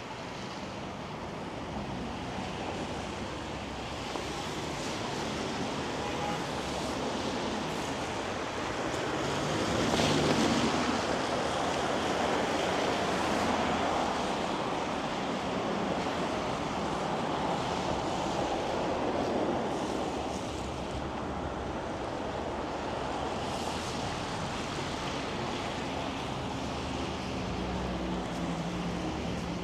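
City traffic on wet, slushy roads: a steady hiss of tyres through slush, swelling as vehicles pass close, loudest about ten seconds in.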